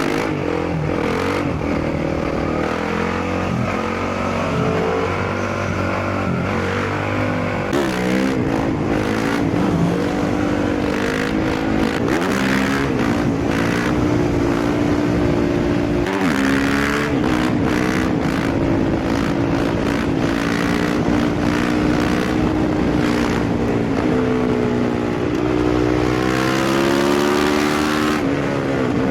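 Honda CRF 450 single-cylinder four-stroke engine through an FMF 4.1 exhaust, ridden hard. The revs climb and drop again and again, with sharp drops at the gear changes and after letting off the throttle.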